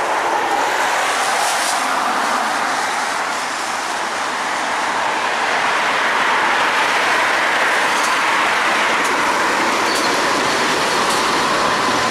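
Freight train led by Pacific National NR class diesel-electric locomotives approaching and running onto a rail bridge: a steady noise of engines and wheels on rail that swells a little about halfway through as the train draws near.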